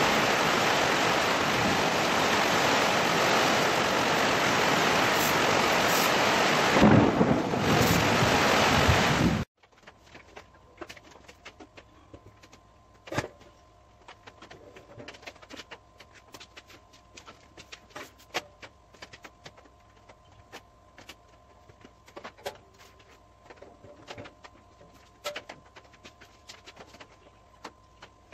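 Welding arc on a steel barrel grill: a loud, steady crackling hiss for about nine seconds that cuts off suddenly. After it comes a much quieter stretch with faint scattered clicks.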